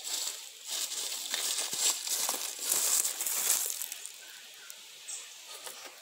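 Footsteps crunching through dry leaf litter and grass, coming closer, then loud irregular rustling and crackling close to the microphone as the phone is handled, settling down near the end.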